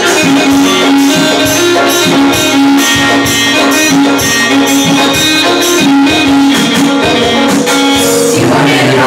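Loud music with a steady beat and a sustained melody line, changing near the end.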